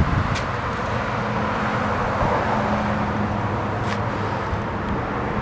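Steady background traffic noise: an even rumble and hiss with a faint low hum.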